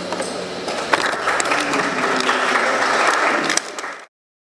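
Audience applauding, growing fuller about a second in, then cutting off suddenly near the end.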